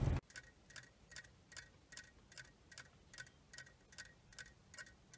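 Solar-powered dancing bear toy ticking faintly and evenly as it rocks, about two and a half clicks a second.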